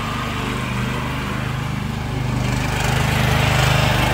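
Small petrol engine of a homemade mini wheel loader running steadily while the machine drives, getting a little louder near the end.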